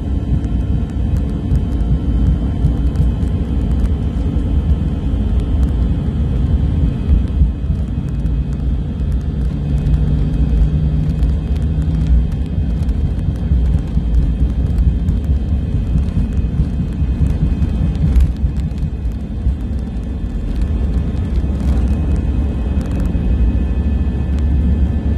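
Airbus A320 on its takeoff roll, heard from inside the cabin: the engines run steadily at takeoff thrust over a heavy, continuous rumble of the wheels on the runway.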